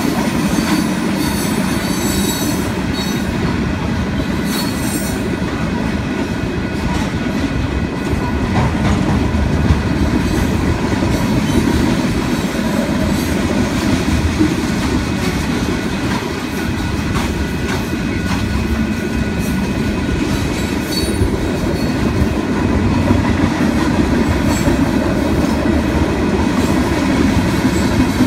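Freight train's covered hopper and tank cars rolling past: a steady, loud rumble of wheels on rail with clicking as the wheels cross rail joints and a thin steady squeal over it.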